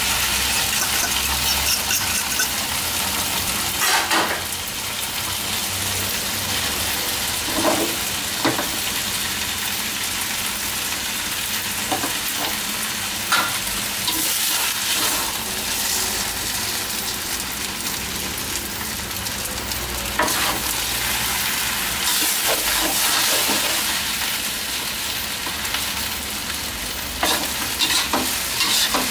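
Stir-frying in a wok: glass noodles, napa cabbage and freshly added egg sizzle steadily in hot oil. Now and then a metal spatula scrapes and knocks against the pan as the food is turned.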